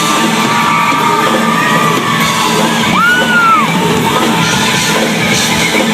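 Live pop song in a large hall: a female singer holding long notes over the band, with audience shouts and a whoop about three seconds in.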